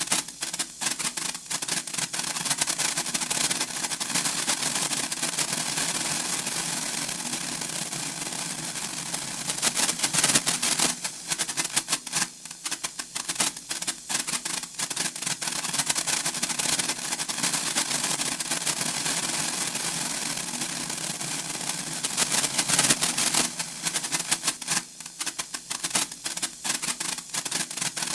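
Senko hanabi (Japanese sparklers) crackling and spitting in a dense run of tiny sharp pops. It thins to sparse pops about a second in, at around twelve seconds and again near twenty-five seconds, then builds back up to its densest crackle.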